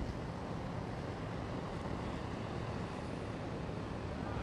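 Steady low rumble and hiss of wind buffeting the camcorder microphone outdoors.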